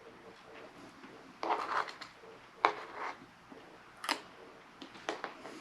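Quiet sounds of eating ice cream: a short scrape about a second and a half in, then a few sharp clicks spread through the rest.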